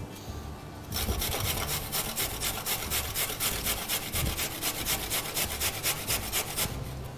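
Carrot being grated by hand on a stainless-steel box grater: quick, rhythmic rasping strokes that start about a second in and stop near the end.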